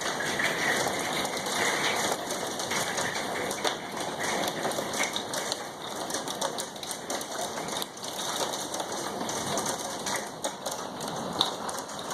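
Hail pelting down hard: a dense, steady patter of hailstones striking hard surfaces, full of sharp clicks.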